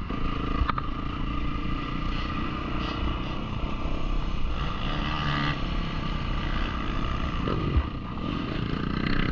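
Yamaha YZ450F dirt bike's four-stroke single-cylinder engine running at low revs as the bike rolls slowly over dirt, its note rising and falling a little with the throttle.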